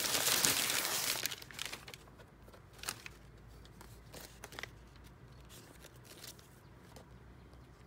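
Packaging crinkling and rustling as a small mail-order parcel is opened, loudest in the first second and a half, then a few light rustles and clicks.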